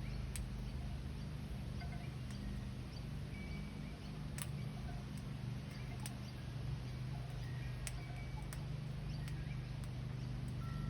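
A steady low hum with scattered single sharp clicks and a few brief, faint chirps from birds.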